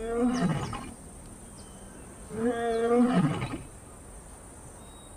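Lioness roaring: two long calls about two seconds apart, each dropping in pitch as it ends.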